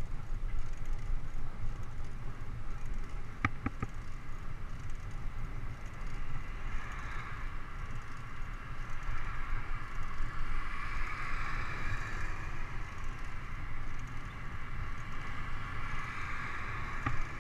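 Bicycle riding noise: wind rumbling on the microphone of a camera on the moving bike, with tyre and road noise, and one sharp knock about three and a half seconds in.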